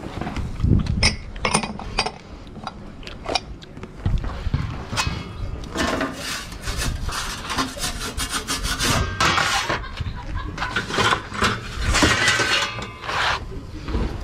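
Metal pizza peel scraping and rubbing across the stone floor of a pizza oven, working under a pizza stuck to the stone. A few light clicks and knocks come first, then about six seconds in a run of rasping scrape strokes begins.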